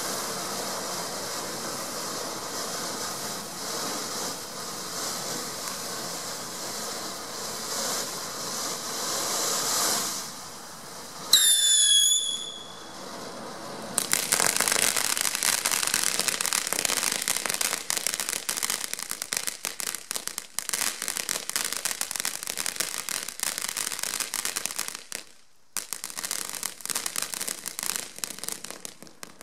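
Hurly Burly fountain firework burning. It gives a steady hissing spray of sparks for about ten seconds, then a brief loud whistle a little past eleven seconds. From about fourteen seconds it changes to dense, rapid crackling, which pauses briefly near the end and resumes.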